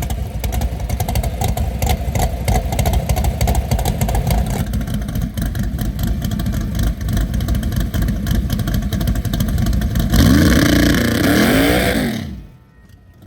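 Loud car engine running with a rapid, choppy exhaust note. It gets louder and revs up and down about ten seconds in, then cuts off suddenly.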